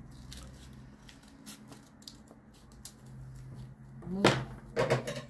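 Scissors cutting through fabric in a series of short snips, with a brief voice sound about four seconds in.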